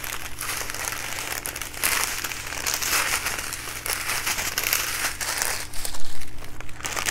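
Small plastic bags of diamond painting rhinestones crinkling as they are handled, an irregular crackle with many small clicks, over a steady low hum.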